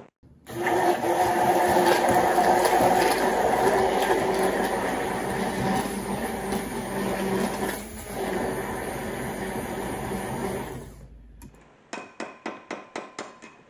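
Electric hand blender running steadily in a glass jug of eggs and seasonings, whipping air into the egg mixture, then cutting off about eleven seconds in. Near the end comes a quick run of about eight light taps.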